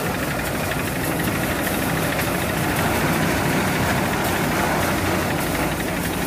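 Tractor-driven threshing machine running steadily while threshing fenugreek, a continuous loud mechanical din of tractor engine and threshing drum.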